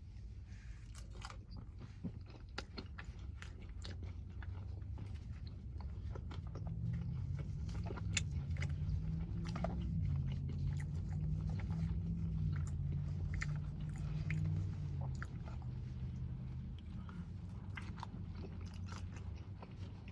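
A person chewing and biting close to the microphone, eating garlic naan with butter chicken: repeated small wet mouth clicks and crunches. A low drone sits under the middle stretch.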